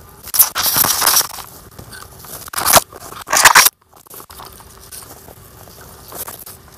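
Walking through dry forest-floor leaf litter and undergrowth, with the crunch of leaves and twigs and plants brushing close past the microphone. Several loud bursts come in the first few seconds, then it goes quieter.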